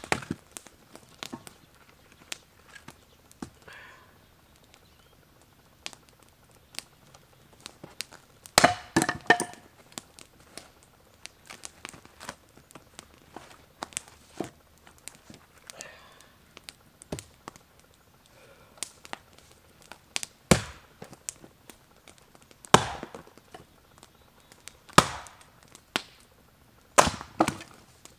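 Axe splitting frozen firewood on a chopping block: sharp cracking strikes several seconds apart, with a quick flurry of them about nine seconds in. Small knocks of split pieces being handled come between the strikes.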